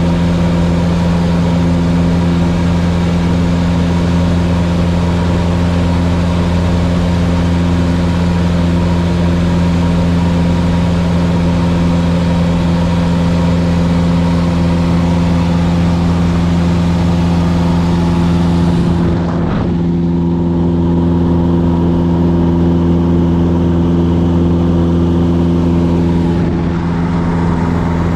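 Steady drone of a light single-engine Cessna's piston engine and propeller in cruise, heard from inside the cabin. The upper hiss drops away briefly twice, about two-thirds in and near the end.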